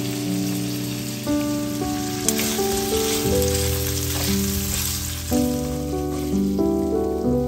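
Instrumental background music with held notes that change about once a second, over shrimp sizzling in oil in a frying pan. The sizzle is strongest a couple of seconds in.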